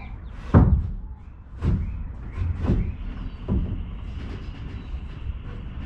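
Four dull knocks about a second apart, over a steady low rumble.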